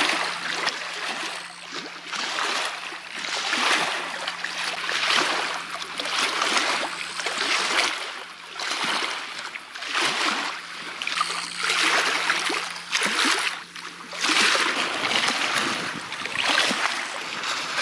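Choppy waves slapping and splashing against the side of a small PVC inflatable boat, in repeated surges roughly once a second.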